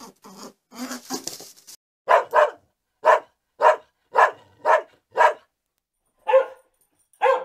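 Dog barking: about nine short, sharp barks, most of them about half a second apart, with a longer pause before the last two. The barks start about two seconds in, after a few soft, short scuffling noises.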